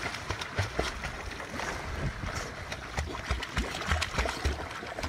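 Chow Chow–Spitz mix dog paddling through shallow seawater, its strokes splashing in quick, irregular slaps, with wind buffeting the microphone in low thumps.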